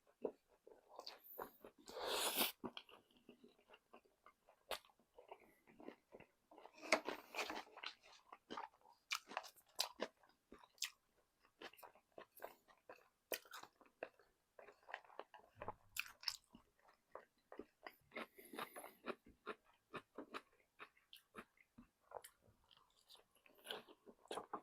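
Close-up chewing and crunching of crispy fried chicken: wet mouth clicks throughout, with louder crackly bites about two seconds in and again around seven seconds.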